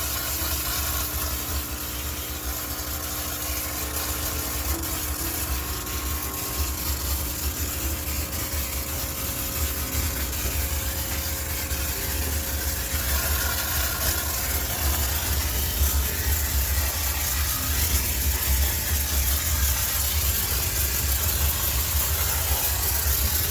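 High-pressure steam cleaner running steadily, a low machine hum with a constant hiss of steam over it.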